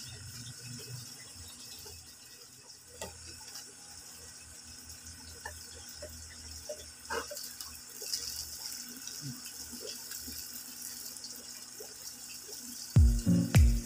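Water trickling and splashing through a siphon hose draining an aquarium, with small drips. Loud music starts abruptly about a second before the end.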